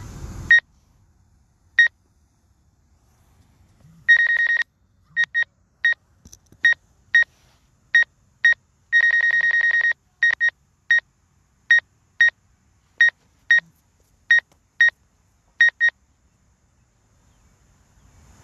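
Electronic beeping: about twenty short, high-pitched beeps at irregular spacing, with two longer ones of about half a second and one second.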